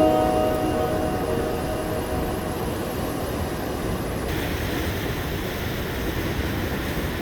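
Steady rumbling noise with no clear tone, turning hissier about four seconds in, while the last notes of music fade out in the first second.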